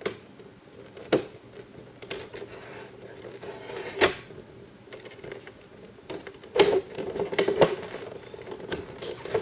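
A cardboard toy box and its inner packaging being handled: scattered sharp clicks and knocks, with a busier run of them from about six to eight seconds in, over a faint steady hum.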